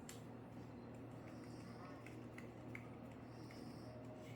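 Quiet room tone: a steady low hum with a few faint small clicks, and a soft high hiss that comes and goes about every two seconds.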